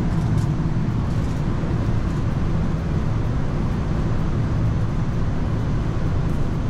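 Steady cockpit noise on a Boeing 787 flight deck: an even rush of air with a low hum underneath, unchanging throughout.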